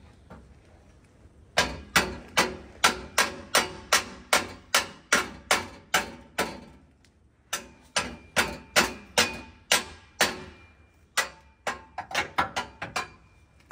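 Hammer blows on metal, about three a second in two long runs, then a quicker, lighter flurry near the end. A faint ringing tone hangs between the blows in the second half.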